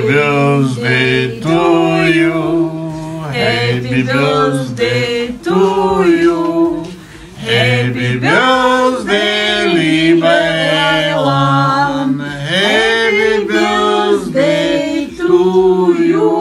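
A small group singing a song together without accompaniment, holding long notes.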